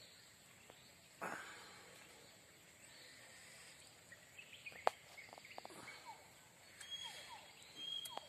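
Quiet outdoor ambience with faint handling noises as a fishing hook is worked out of a small catfish's mouth: a brief rustle about a second in, then a sharp click and a few light ticks.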